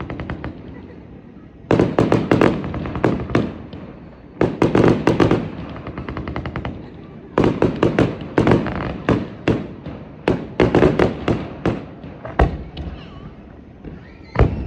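Aerial fireworks bursting in rapid volleys of sharp bangs and crackles, coming in clusters with short lulls between them, then a couple of single booms near the end.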